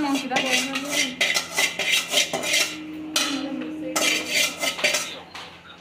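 Metal cooking utensils and pots clinking and scraping against each other in a quick, irregular run of clatters, as when food is handled and stirred in a pan.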